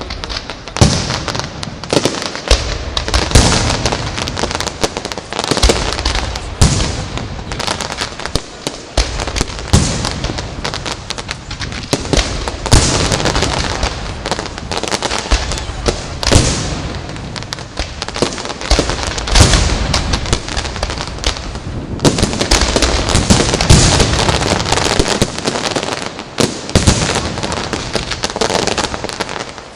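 Aerial fireworks display: shells bursting in rapid, overlapping succession, many sharp bangs a second over a continuous noisy fill, with no real pause.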